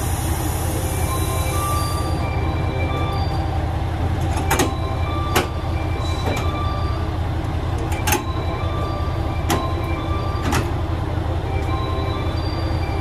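Diesel engine of a standing KTR8000-series railcar idling with a steady low rumble. A hiss cuts off about two seconds in, and several sharp clicks come in the second half, with faint short beeping tones behind.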